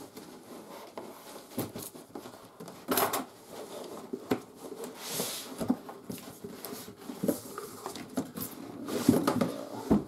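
Cardboard shipping carton rustling, with irregular knocks and scrapes, as a large shrink-wrapped board-game box is lifted out of it and set down on a wooden table. The louder knocks cluster near the end.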